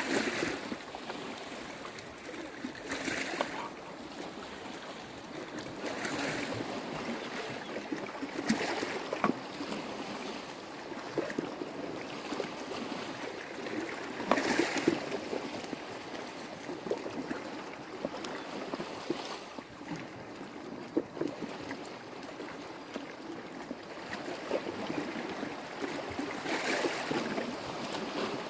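Sea waves washing against a rocky shore, a steady wash that swells every few seconds. Now and then a knife clicks and scrapes on a wooden board as food is cut.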